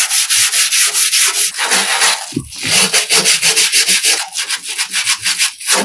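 Hand wire brush scrubbing rapidly back and forth over the degreaser-soaked painted steel edge of an old toolbox, scraping off packed grease. The strokes pause briefly about two and a half seconds in and stop just before the end.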